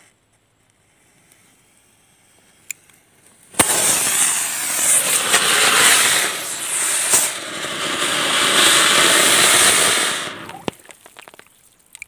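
An anar (flower-pot firework) catches about three and a half seconds in and sprays sparks with a loud, steady hiss for about seven seconds, then dies away. A single sharp click comes shortly before it ignites.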